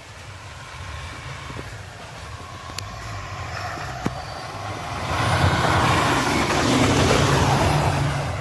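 4x4 SUV engine pulling up a snowy track, a low rumble that grows louder about five seconds in, joined by a broad rush of tyre and snow noise. Two sharp clicks come about three and four seconds in.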